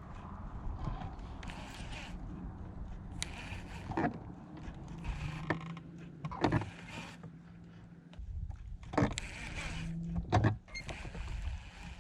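Small fishing boat: an electric trolling motor hums on and off, with several sharp knocks and clicks against the boat and low rumble.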